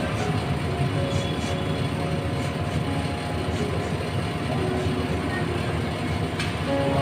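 Steady low rumble of vehicle noise, with a few faint short tones and a single click about six and a half seconds in.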